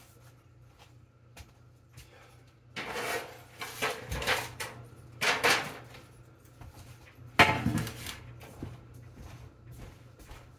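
A metal baking sheet being fetched from a kitchen cupboard: rattling and scraping for a few seconds, then one sharp loud bang about seven seconds in.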